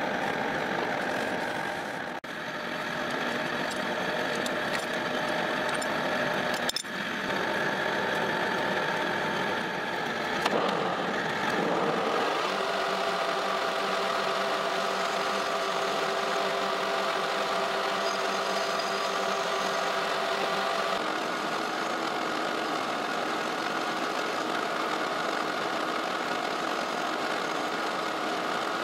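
Metal lathe running with a steady whine of several tones from its gearhead, while the cutting tool turns a pointed centre on a steel piece in the chuck. The tones change about twelve seconds in, and there are two brief breaks early on.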